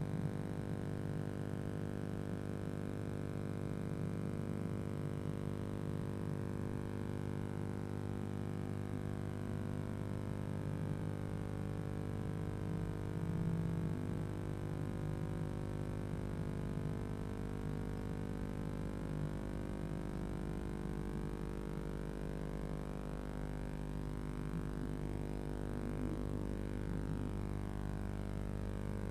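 Steady electrical hum and buzz, a stack of unchanging tones, picked up by the nest-box camera's audio line over an empty nest.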